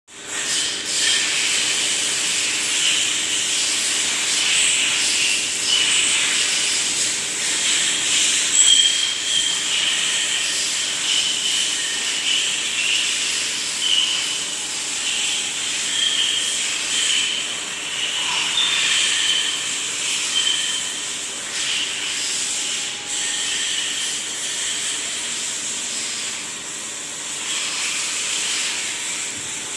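Makino BN2-85-A6 CNC milling machine running, a steady hiss with high, wavering whine over a faint low hum.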